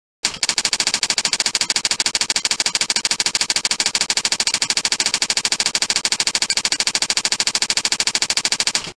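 Typewriter sound effect: a rapid, even run of sharp key clicks, about ten a second, that starts abruptly and stops just before the end, keeping time with text being typed onto the screen letter by letter.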